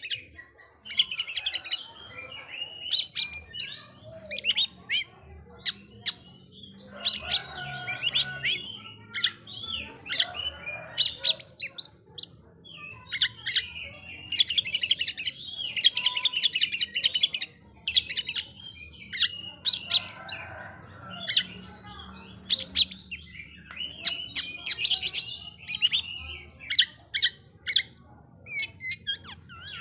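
Oriental magpie-robin (kacer) singing in bursts of quick, varied whistles and chattering notes, with short pauses between phrases.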